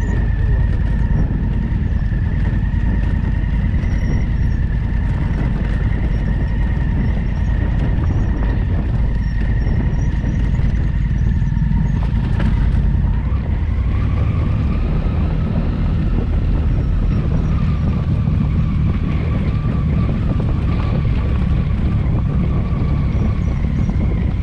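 Big twin-cylinder adventure motorcycle running under way, its engine rumble mixed with steady wind noise on the microphone. A faint steady whine steps to a slightly different pitch about halfway through.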